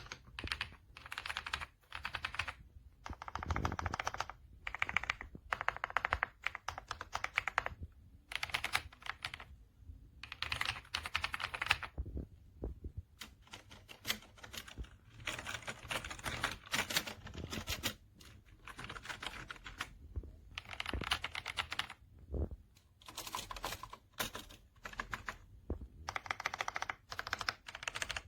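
Typing on an AJAZZ AK820 75% mechanical keyboard: runs of rapid key clicks lasting a second or two, broken by short pauses.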